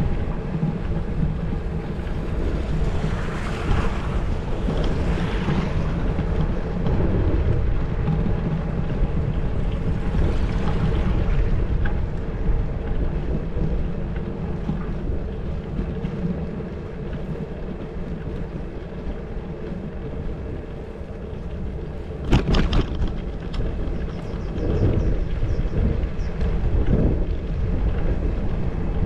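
Wind rushing over a bicycle-mounted action camera's microphone while riding, over a steady low rumble of the ride. The noise swells twice in the first half, and about 22 seconds in there is one sharp knock with a brief rattle.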